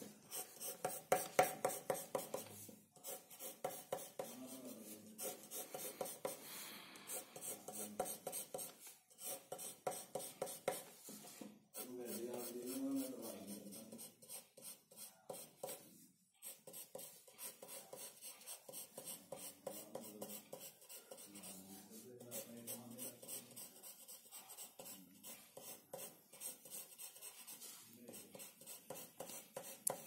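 Graphite pencil scratching on drawing paper in rapid, repeated back-and-forth strokes: shading and hatching.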